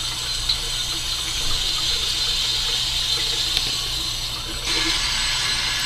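Running water, a steady rush that grows fuller about three-quarters of the way through.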